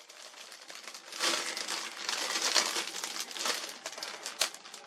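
Packaging crinkling and rustling as a new laptop is unwrapped. It is faint for the first second, then a steady crackle with a few sharp clicks.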